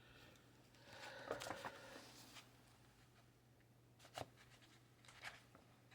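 Faint rustling of paper and stickers being handled, followed by two light clicks or taps about four and five seconds in.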